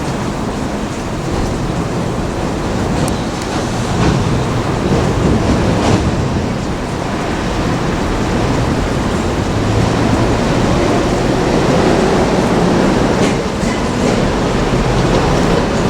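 A train running on the rails: a steady rumble with a few faint clicks.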